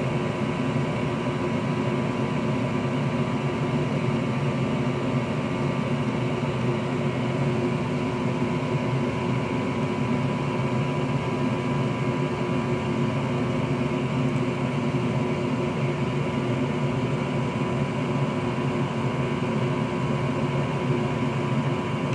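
Steady electric fan and motor hum, even and unchanging, with several steady tones in it.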